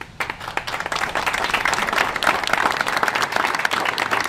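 Audience applauding: many hands clapping, swelling to full strength within about the first second and then keeping up steadily.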